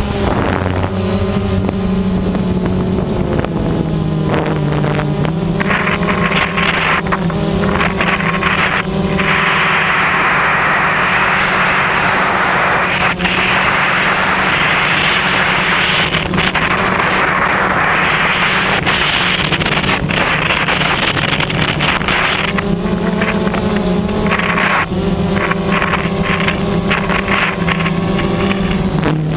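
DJI Phantom quadcopter's motors and propellers humming, heard through the camera mounted on the drone, the pitch stepping up and down as the rotor speeds change. From about 9 to 22 seconds in, a loud rush of wind on the microphone rises over the hum as the drone flies at speed.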